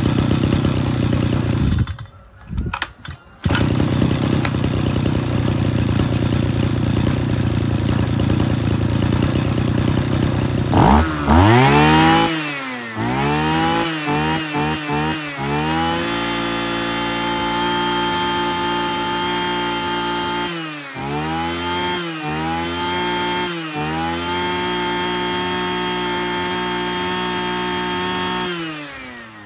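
Mitsubishi TL33 33cc two-stroke brush cutter engine idling steadily, with a brief drop about two seconds in. From about eleven seconds it is revved up and down on the throttle several times, then held at high revs with a few quick dips, and its sound falls away near the end.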